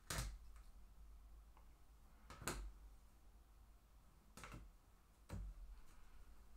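Four short, soft taps spread a second or two apart, against quiet room tone: trading cards in plastic holders being handled and set down on a table.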